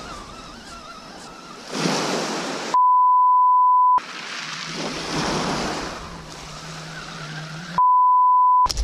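Censor bleep, a steady high beep that blanks out swearing twice: once about three seconds in for just over a second, and again near the end. Between the bleeps, small waves wash onto a shingle beach.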